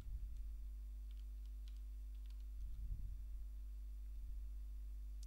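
Faint computer-keyboard typing, a handful of scattered key clicks, over a steady low electrical hum, with a soft low bump about three seconds in.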